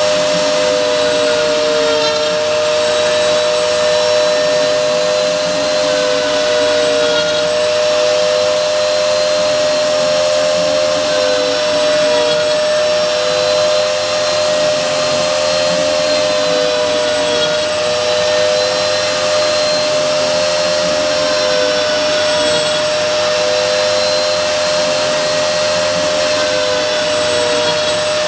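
CNC router spindle milling: a high, steady motor whine with a second tone that dips and recovers every few seconds as the cutter takes load.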